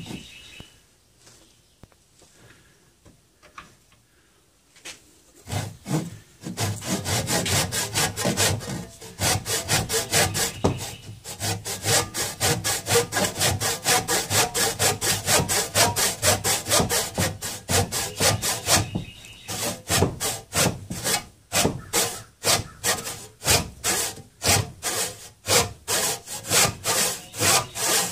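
Hand backsaw cutting through a wooden hoe-handle stub. Quiet for the first few seconds, then steady back-and-forth sawing strokes from about five seconds in, about two strokes a second.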